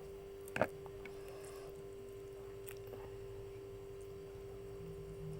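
A steady hum with one short, sharp knock about half a second in and a couple of faint clicks after it.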